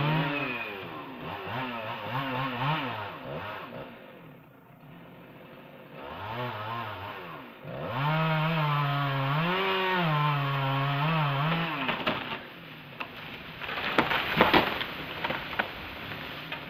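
Chainsaw cutting high in a tree, revving up and down in two long bursts with a short drop to idle between them. About fourteen seconds in come a cluster of sharp cracks and a crash as a large cut limb breaks and falls.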